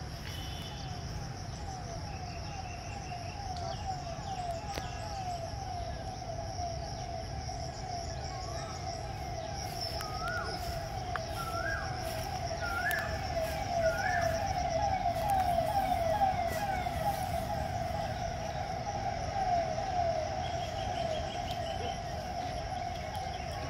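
Outdoor park ambience: a steady high insect-like buzz and a lower, fast-repeating warbling tone, with a few short rising bird calls about nine to fourteen seconds in, over a low rumble.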